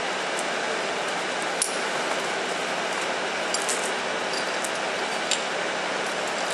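Steel crane chain and hooks clinking as they are hooked onto a bulk bag, with several sharp metal clinks, the loudest about one and a half and five seconds in, over steady background noise.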